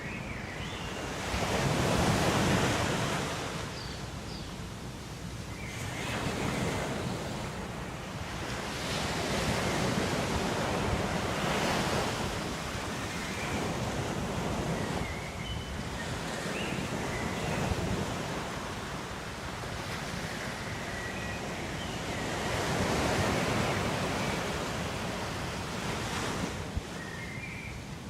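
Ocean waves breaking and washing onto shore, swelling and fading every four to six seconds, with faint short high chirps now and then.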